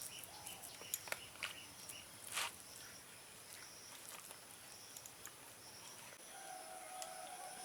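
Faint rural background of insects chirring steadily, with a few soft clicks and a brief rustle about two and a half seconds in. A faint steady tone comes in about six seconds in.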